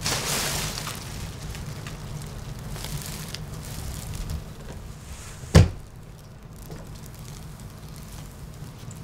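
Black plastic bin bag rustling as it is handled, over a steady low hum, with one sharp thud a little past halfway.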